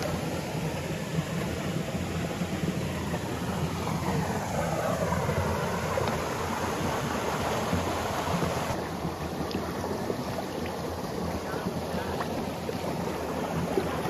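Water from small cascades over granite rocks pouring into a rock pool, a steady rushing.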